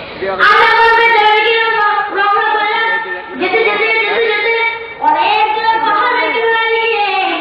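A child's voice singing in long, drawn-out, wavering notes, in three phrases with short breaks about three and five seconds in.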